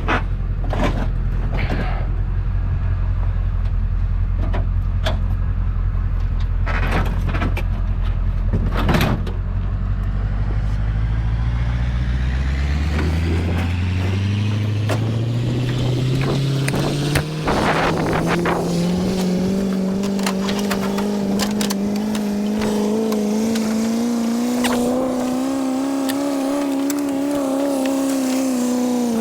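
Truck engine idling with several knocks and clicks, then rising steadily in pitch as the vehicle pulls away and accelerates, running at an even speed afterwards and easing off near the end.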